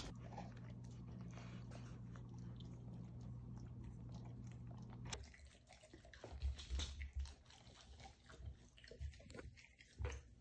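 A dog chewing and licking at a rubber Kong toy stuffed with frozen pumpkin and yogurt: faint, irregular gnawing clicks and a few low knocks, which come in the second half. A steady low hum runs underneath for the first five seconds or so.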